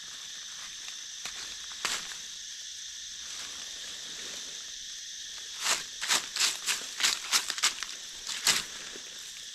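A steady high-pitched insect chorus. A single crackle comes about two seconds in, then a quick run of about a dozen crackling rustles in the forest-floor litter near the end.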